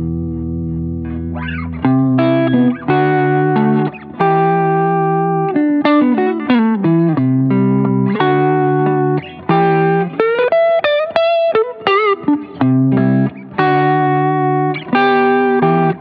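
Electric guitar played through a Fulltone Mini Deja Vibe, a Uni-Vibe-style pedal, with a Line 6 HX Stomp. A held chord rings for about two seconds, then comes a string of loud chord stabs with short gaps. Near the middle there is a falling run and a bent note with wavering vibrato.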